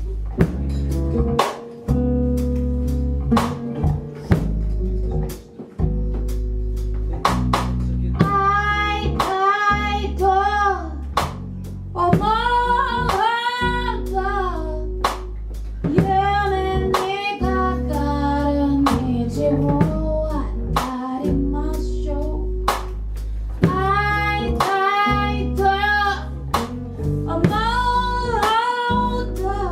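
A song with a drum beat and bass. It opens instrumental, and a high singing voice comes in about eight seconds in, in repeated short phrases.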